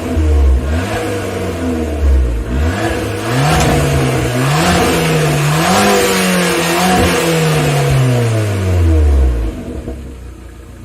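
Abarth 595's turbocharged 1.4-litre four-cylinder engine with its stock exhaust, revved several times, held high for a few seconds, then letting the revs fall back to idle near the end.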